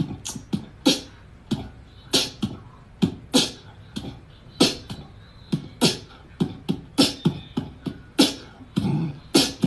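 Beatboxing: a rhythmic mouth-made beat of sharp snare-like clicks, about two or three a second, with low kick sounds between them.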